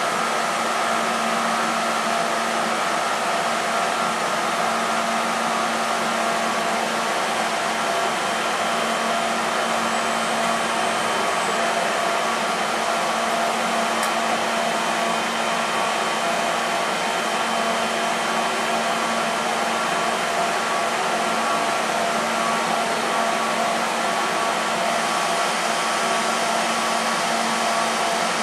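Stationary FS E.402B electric locomotive running its cooling blowers: a steady whirring with a constant electrical hum and a few held tones, unchanging throughout.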